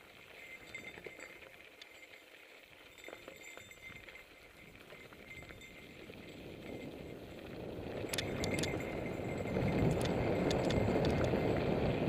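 Mountain bike rolling along dirt singletrack, with light clinks and rattles from the chain and frame. A rushing noise of tyres and wind swells from about halfway through, and a few sharper rattles come near the end.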